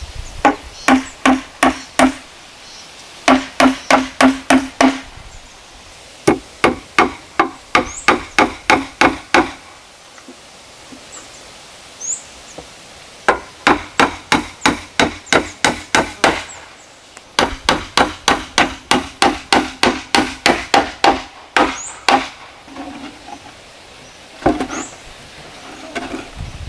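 Hammer driving nails into wooden boards: five runs of quick, evenly spaced blows, about four a second, with short pauses between nails and a few lighter knocks near the end.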